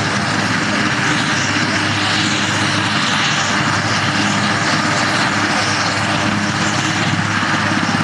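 Airbus (Eurocopter) AS-332B Super Puma helicopter's twin turboshaft engines and main rotor running steadily on the ground, a continuous turbine whine mixed with rotor noise.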